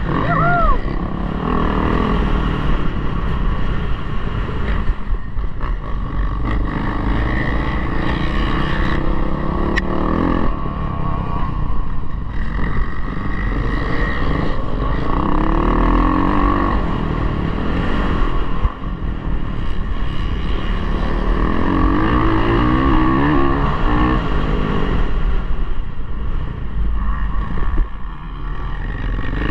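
Motocross dirt bike engine revving up and easing off again and again, its pitch rising and falling as the bike accelerates and brakes round the track, heard through a helmet-mounted camera.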